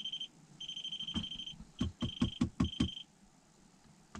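Fish finder's fish alarm beeping, a high electronic tone sounding in about five long and short beeps, signalling that fish are showing under the ice. From about a second in to about three seconds in, a quick run of about six dull knocks sounds between the beeps.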